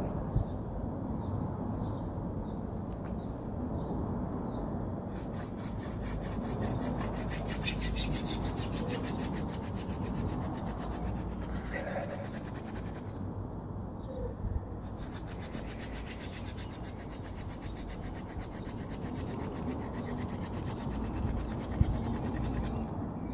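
Hand-drill friction fire: a wooden spindle spun back and forth between the palms, its tip grinding into a wooden hearth board with a steady rubbing whirr. The rubbing stops briefly about two-thirds through, then starts again.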